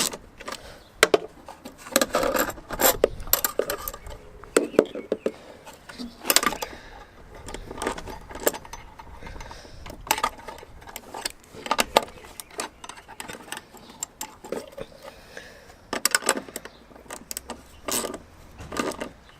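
Metal tools and bolted hinge hardware clinking and scraping by hand, with irregular sharp clicks, as the bonnet hinges are adjusted.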